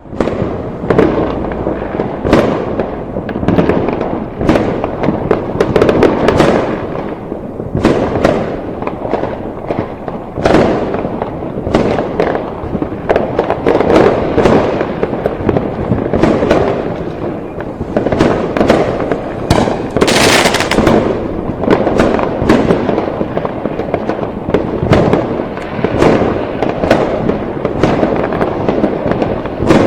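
A dense, continuous fireworks display: a steady crackle of bursts with many sharp bangs overlapping throughout.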